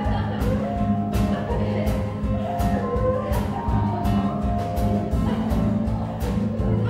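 Band music with a steady drum-kit beat under sustained bass notes and a slow melody line.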